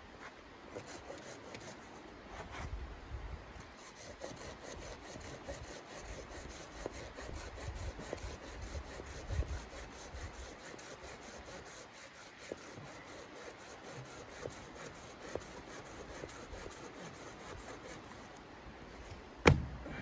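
A red-handled folding hand saw cutting through a dead branch in rhythmic back-and-forth strokes, its teeth rasping through the wood. Near the end comes one sharp, loud knock.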